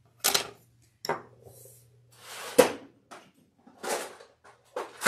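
Craft tools being picked up and set down on a tabletop: a string of clacks and knocks with rummaging in between, the sharpest knock about two and a half seconds in. Among them a wooden-handled awl is laid down on the table.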